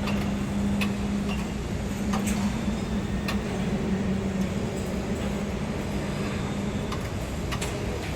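Construction-site ambience: a steady machinery hum over a constant rumble, with scattered sharp metallic knocks and clicks. The hum stops about 7 seconds in.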